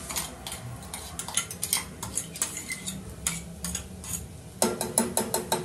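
A ladle stirring onions and ginger-garlic paste frying in oil in a pressure cooker, scraping and clinking against the metal pot in quick, irregular strokes over a faint sizzle.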